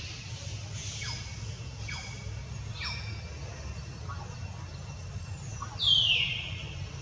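Short, faint high squeaks falling in pitch about once a second, then about six seconds in one loud high squeal that slides down in pitch, over a steady low rumble.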